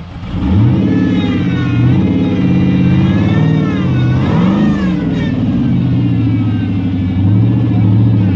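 Twin-turbo 5.3-litre V8 in a crawling Jeep revving, coming on hard about half a second in, then engine speed rising and falling repeatedly under throttle.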